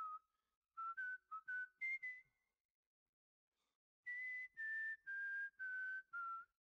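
A whistled tune: a quick phrase of short notes, then after a pause five longer held notes stepping down in pitch.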